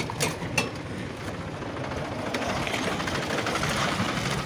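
A vehicle's engine running steadily as it drives along a dirt track, with a few clicks in the first second and the noise growing slightly louder about halfway through.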